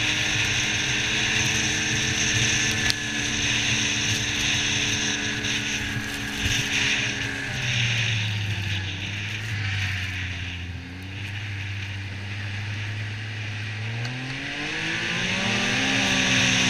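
Yamaha Viper XTX snowmobile's three-cylinder four-stroke engine running at a steady pace, with a hiss of wind and track noise over it. About halfway through the engine drops in pitch as the sled slows, then revs back up near the end as it accelerates.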